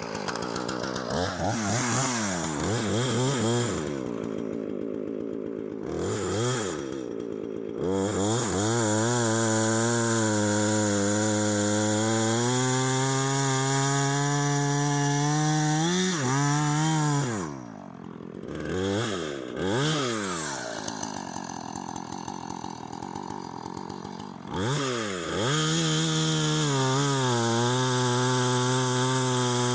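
Husqvarna two-stroke chainsaw bucking a log: revved in short blips, held at high revs through a long cut, dropped back to idle about two-thirds of the way through, then throttled up again for another long cut.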